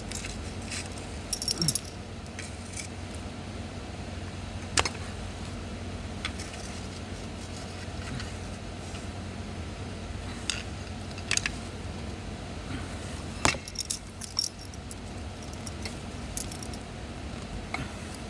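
Scattered sharp metallic clicks and clinks of hand tools working on a bus jump-start cable connector. A steady low hum runs underneath.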